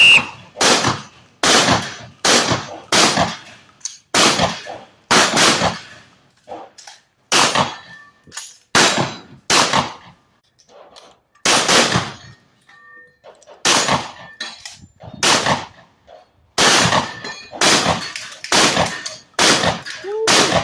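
A rapid string of shotgun shots fired at steel plate targets, about twenty in all, each a sharp report with steel ringing after it. The spacing is uneven, with a few short pauses between bursts.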